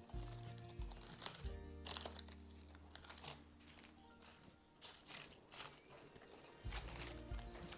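Background music with sustained notes, over the crinkling and crackling of dry onion skins being picked up and pressed onto felt by hand.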